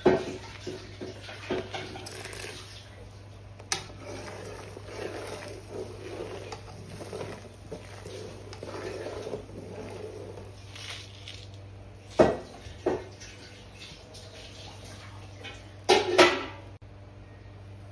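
Metal ladle stirring and sloshing water in an aluminium cooking pot, with several sharp clinks of the ladle against the pot, the loudest about twelve and sixteen seconds in. A steady low hum runs underneath.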